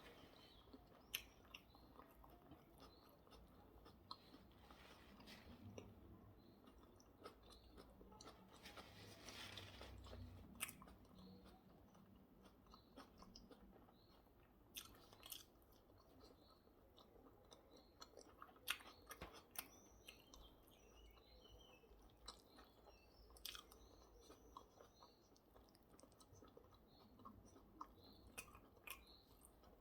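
Faint close-up chewing of hamburger and salad, with occasional crunches and short sharp mouth clicks scattered through.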